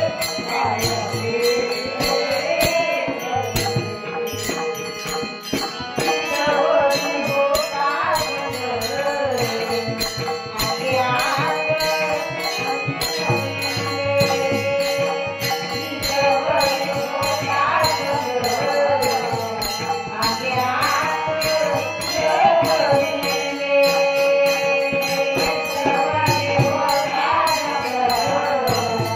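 Marathi devotional bhajan, a gaulan, sung with a woman's lead voice, over jingling hand percussion keeping a steady beat.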